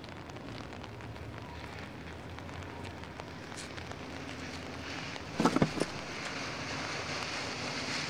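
Steady outdoor street ambience, an even hiss of distant traffic, with a brief loud cluster of a few short sounds about five and a half seconds in.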